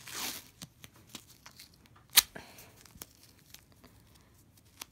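Stretch bandage wrap being pulled and smoothed around a thumb and hand: a short rustling stretch at the start, then scattered faint crackles and ticks, with one sharp loud click about two seconds in.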